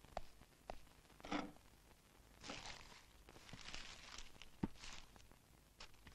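Quiet movement sounds: faint rustling with a few soft clicks.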